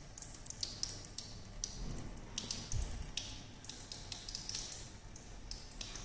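Water in a water bath heated by a Bunsen burner, bubbling faintly under a refluxing round-bottom flask: small irregular pops and ticks over a low hum.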